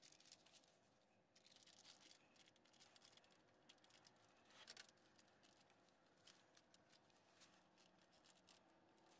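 Near silence, with faint scratching and small clicks of gloved hands handling the cable terminals on the starter; one slightly louder click just before the five-second mark.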